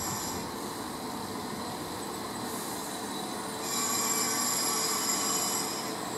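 Diesel passenger railcar train rolling slowly into a station platform and braking. About halfway through, a high-pitched brake squeal rises over the running noise, holds for about two seconds and fades as the train nears a stop.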